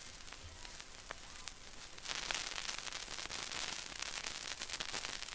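Vinyl 45 rpm record surface noise after the song has ended: steady hiss with scattered crackles and pops, getting louder about two seconds in.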